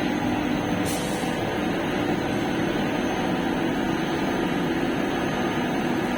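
A 20 HP Comptech rotary screw air compressor running steadily with an even mechanical drone and hum, and a brief high hiss about a second in.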